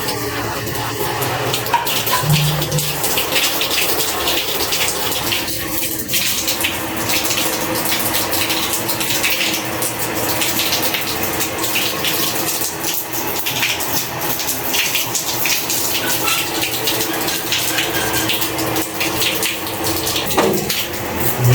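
Water running steadily, with a continuous splashing rush.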